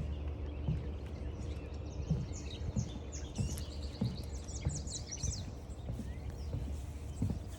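Footsteps on a forest trail, a soft step about every two-thirds of a second, over a steady low rumble. Songbirds are singing, with a rapid run of high chirping notes from about three to five and a half seconds in.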